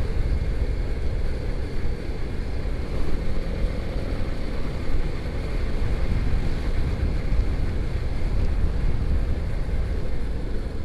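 Motorcycle under way at steady speed: the engine and road noise run on under wind buffeting the rider's microphone, with no change in pace.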